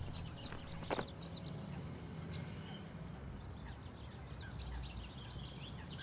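Small birds chirping in short repeated tweets over a low, steady hum of street traffic, with a single sharp knock about a second in.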